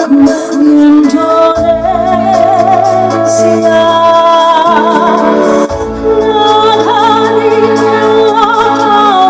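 Music with a solo voice singing long held notes with vibrato over instrumental accompaniment and sustained bass notes.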